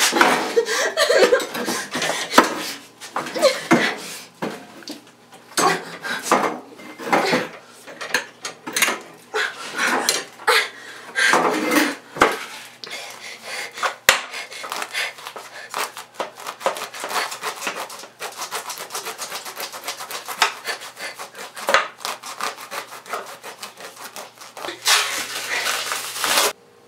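Hacksaw being worked: scraping and knocking as things are handled, then a long run of quick, even sawing strokes in the second half that cuts off suddenly near the end.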